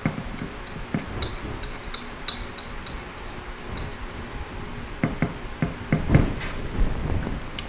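Light metallic clicks and small ringing clinks of aluminum machine parts being handled and fitted together by hand, with a few duller knocks about five to six and a half seconds in.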